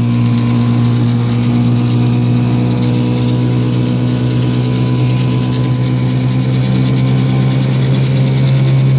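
1956 Johnson 5.5 hp two-stroke outboard motor running steadily under way, pushing a small aluminium jon boat, its pitch edging slightly higher near the end.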